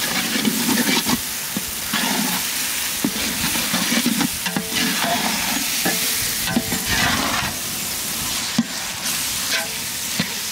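A metal ladle stirring and scraping around a large metal pot of chopped tomatoes, mint and coriander frying in oil and ghee, over a steady sizzle. The ladle knocks against the pot a few times.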